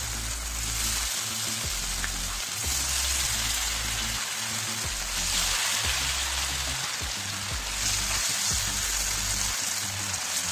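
Marinated chicken sizzling in hot mustard oil on a tawa, a steady frying hiss, over background music with a steady bass line.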